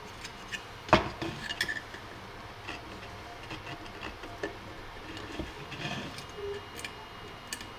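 Scattered small clicks and taps of a 3D-printed plastic part and hand tools being handled on a bench, with one sharper knock about a second in.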